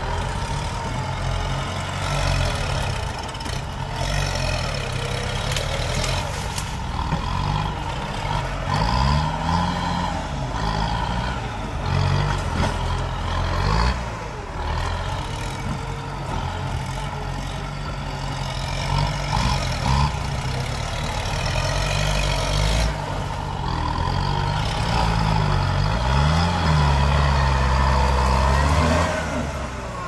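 Diesel engines of two farm tractors working under load as their front dozer blades push against a tree and a mound of earth, the engine note rising and falling as they rev, most clearly about a third of the way in and again near the end.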